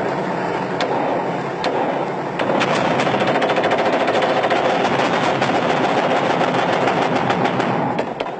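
Automatic gunfire: scattered shots at first, then a long stretch of rapid, continuous fire from about two and a half seconds in.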